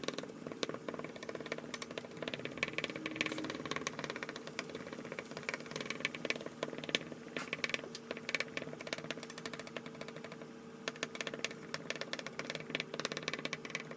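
Kitchen knife dicing a red onion on a cutting board: quick, irregular chopping taps, over the steady hum of a fan.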